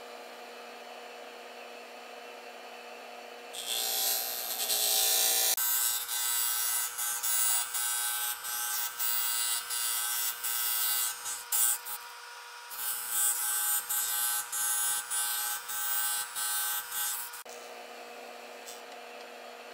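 Disc sander running with a steady hum, then a wooden gear blank, pivoted on a pin, is turned against the spinning sanding disc, making loud gritty wood-sanding noise in quick repeated strokes for about fourteen seconds as its edge is sanded round. The sanding stops near the end and the sander hums on alone.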